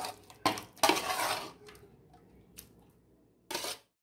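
A metal spoon clinking and scraping against a stainless steel cooking vessel: a few sharp clinks, one longer scrape about a second in, and a last clatter just before the sound cuts off.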